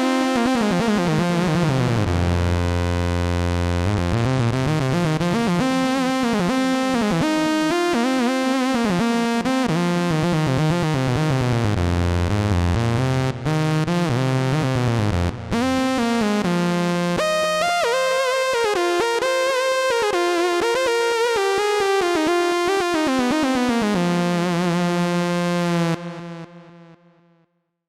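Roland Gaia-2 synthesizer playing a sustained patch, several notes held at once with pitches gliding up and down. It fades out about a second before the end.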